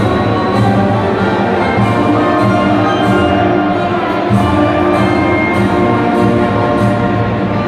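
Orchestral music with brass and strings played over a stadium's loudspeakers, steady and loud.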